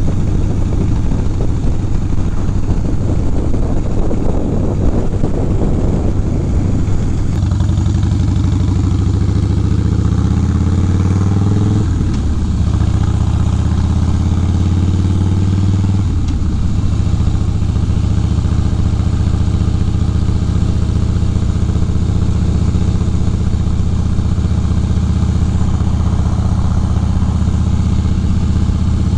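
Harley-Davidson V-twin motorcycle engine running under way, heard from the rider's seat with wind and road noise. The engine note changes pitch a couple of times in the first half, about 12 and 16 seconds in, as it goes through gears, then holds a steady cruising note.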